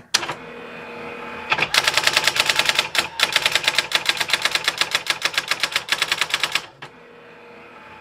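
Brother SX-4000 electronic daisywheel typewriter printing out a buffered line: a fast, very even run of daisywheel strikes, about ten a second, for about five seconds. Its quieter motor hum comes before and after the strikes.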